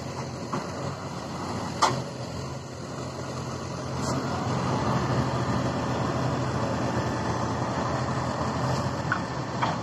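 Heavy diesel machinery engine running steadily, its drone growing a little louder about four seconds in. A single sharp knock about two seconds in.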